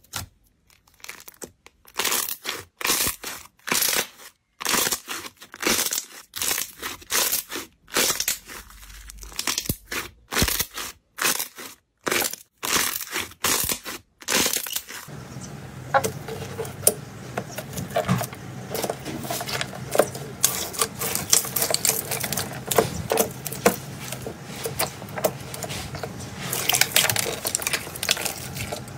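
Hands stretching and pressing clear slime in a bowl: a run of short crackling, tearing pops with brief silent gaps between them. About halfway through, this gives way to quieter, denser squishing and clicking over a steady low hum.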